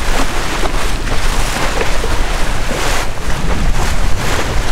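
Wind buffeting the microphone in gusts over the rush of sea water along the hull of a sailing yacht under way.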